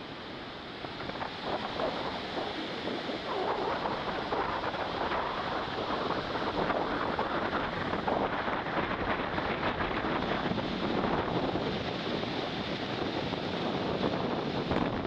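Sea surf breaking and washing up on a sandy beach: a steady rushing noise that swells over the first couple of seconds, with wind buffeting the microphone.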